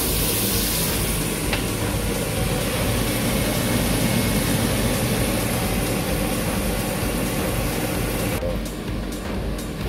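Burger patties and onions sizzling in a frying pan, with a steady low hum underneath. About a second in, a glass lid goes on and the high hiss dulls, with a light clink soon after. Near the end the sizzle thins to a fainter hiss with faint ticks.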